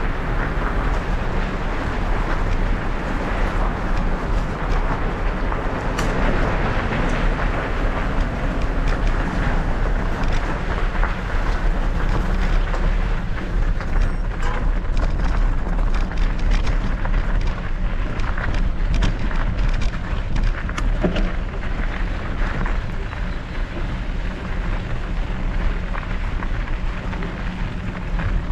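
Mountain bike rolling over loose gravel and dirt: a steady rumble of the tyres with wind noise on the microphone. Scattered clicks and rattles of stones and the bike come thicker from about halfway through.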